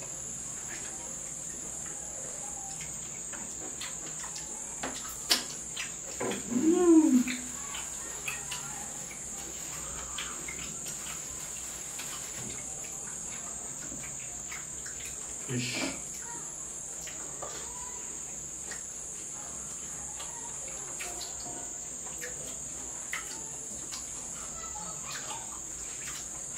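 Crickets trilling in a steady high-pitched drone, with scattered faint clicks and two brief vocal sounds, the louder about six to seven seconds in and a shorter one near sixteen seconds.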